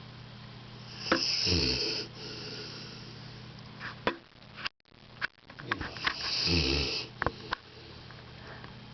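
Elderly labrador retriever snoring in her sleep: two long snores about five seconds apart, each about a second long and falling in pitch, with a breathy hiss on top. A few short clicks come between them.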